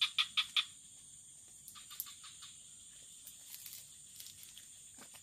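Insects buzzing steadily at a high pitch, with a quick run of four sharp clicks at the start and fainter scattered clicks after.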